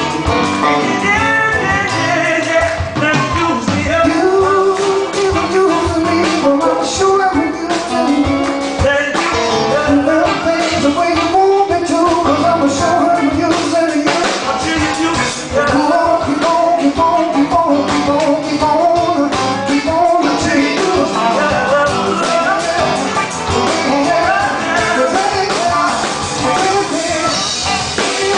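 Live rock-and-blues band playing, with a man singing lead over electric guitar.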